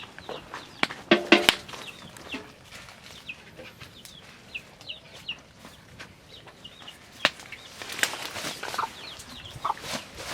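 Chickens clucking, with many short high chirps throughout. The loudest call comes about a second in, and there is a sharp knock about seven seconds in.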